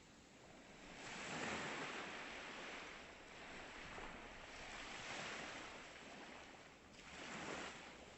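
Ocean surf: waves washing in as three rising and falling surges of noise, the loudest about a second and a half in and a shorter one near the end.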